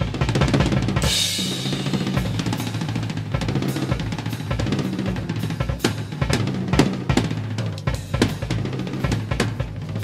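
1970s jazz-fusion recording with the drum kit to the fore, playing busily on kick, snare and cymbals, with a cymbal crash about a second in.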